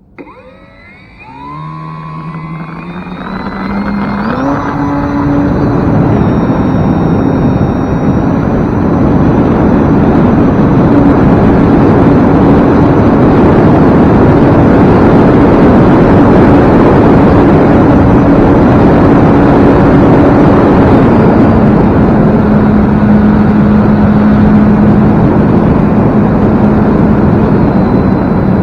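Electric motor and propeller of an E-flite Carbon Cub S2 RC airplane throttling up in steps from rest, a whine rising in pitch, then running at high throttle with a loud rushing noise. The whine drops to a lower pitch about three-quarters of the way through as the throttle is eased back.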